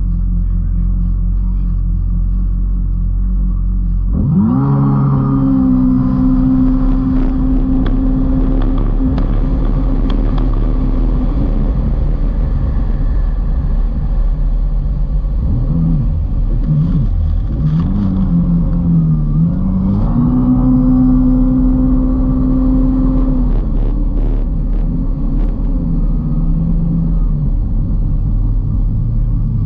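Kawasaki Ultra 310LX jet ski's supercharged four-cylinder engine. It runs low and steady, then is throttled up sharply about four seconds in and held at a high steady pitch. Around the middle the pitch dips and wavers as the throttle is eased and reopened, and it settles lower near the end, over the rush of water spray.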